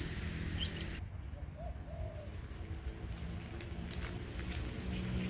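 A dove cooing, two short low coos about a second and a half in, over a steady low hum.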